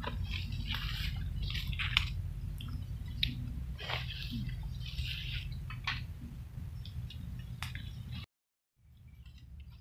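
Footsteps and rustling, crackling leaves as people push through dense undergrowth on soft, rain-wet forest ground, over a low handling rumble. The sound cuts out for about half a second near the end and comes back quieter.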